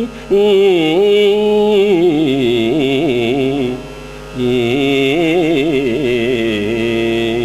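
A man's voice singing a Kannada epic verse in gamaka style: a slow, melismatic recitation in a Carnatic raga with long held, ornamented notes over a steady drone. He breaks off briefly about half-way.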